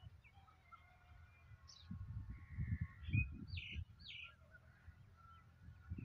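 Wind gusting on the microphone in low rumbles, strongest from about two to four seconds in, with birds chirping and calling over a faint outdoor background.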